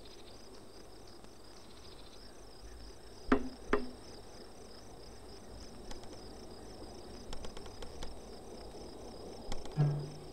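Crickets chirping in a steady pulsing rhythm, with two sharp knocks a little over three seconds in and a few light taps near the end.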